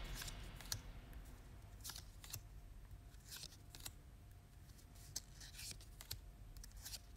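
Faint swishes and clicks of Yu-Gi-Oh trading cards sliding across one another as they are flipped one by one through a hand-held stack, every second or two.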